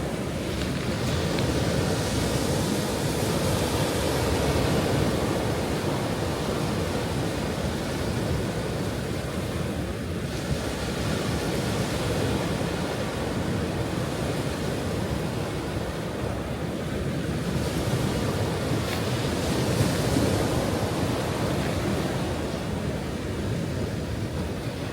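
Ocean waves breaking and washing on a shore, a continuous rushing surf that swells and eases gently.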